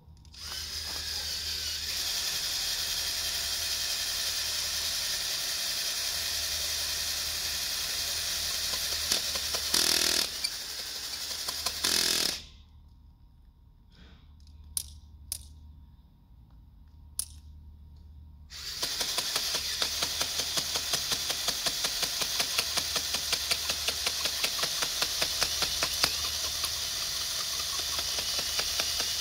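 Power drill turning an auger bit down into hard, dry dirt, running steadily with two brief louder surges. About twelve seconds in it stops for several seconds, with a few sharp clicks. Then it starts again with a fast, even ticking rattle.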